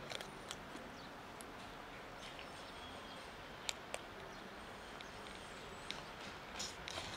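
Tabby cat eating dry kibble from a plastic tub: scattered short crunches and clicks, a pair of sharper ones about halfway through, over a steady faint hiss.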